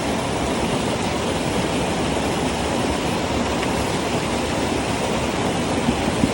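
Steady rush of falling water from a waterfall, an even, dense noise with no let-up, with a couple of light knocks near the end.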